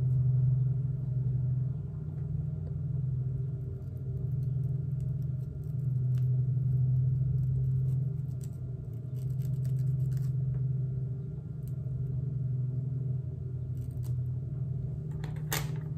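A steady low machine-like hum that swells and fades slowly, with a few faint ticks and one sharper click near the end.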